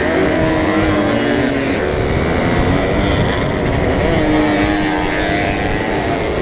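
Small two-stroke moped engine running hard in a race, its pitch rising and falling with the throttle.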